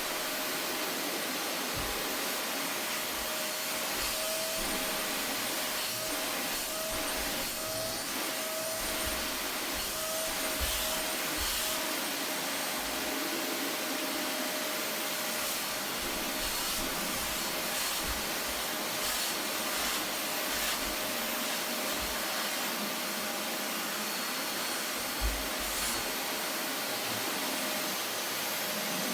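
Vacuum cleaner running steadily, its motor's whine holding one pitch over the rushing air, with faint scratchy brushing and a few soft low knocks as the nozzle is worked.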